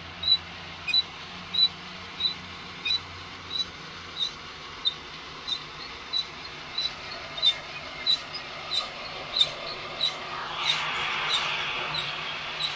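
Rotating flour-sifter roasting drum of a home heat-gun coffee roaster, driven by a cordless drill, giving a short squeak once per turn, about one and a half times a second. A steady rushing noise rises in about ten seconds in.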